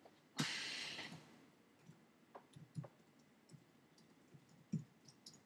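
Scattered faint light clicks at a desk, after a short noisy whoosh about half a second in that fades out within a second.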